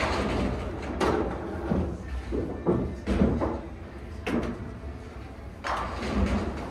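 Pool balls on a billiards table: a cue striking the cue ball, then balls clicking together and knocking against the cushions as the cue ball rolls down the table. Several sharp knocks, spread about a second or more apart.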